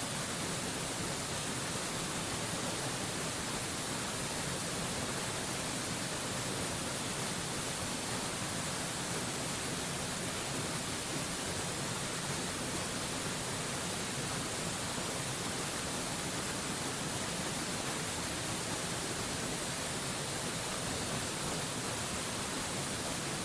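Steady, unbroken rush of a mountain waterfall: an even hiss with the most energy high up and no changes.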